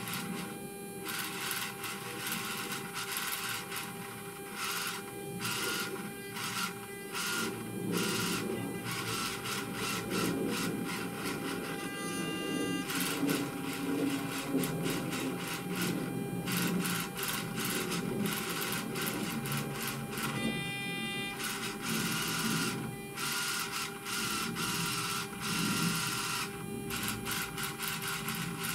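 Servo motors and gear train of a C-5 Galaxy EPR indicator whirring in irregular stop-and-go spurts as the tape and counter follow a hand-turned synchro transmitter, over a steady electrical hum.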